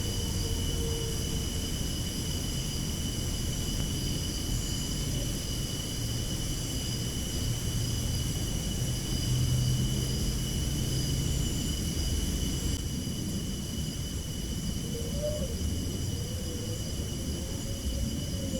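Steady outdoor background noise: a low rumble under several constant high-pitched whines. A faint wavering tone rises and falls a few times near the end.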